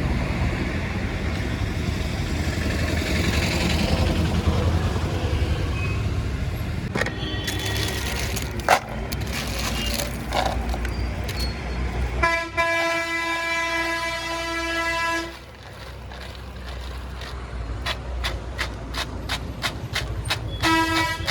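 Steady roadside traffic noise with a long horn blast on one held pitch for about three seconds midway, then a short toot near the end.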